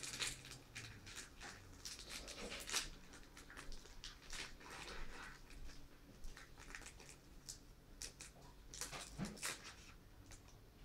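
Foil trading-card booster-pack wrapper crinkling and tearing as it is opened by hand, a string of short, irregular crackles with a louder flurry near the end.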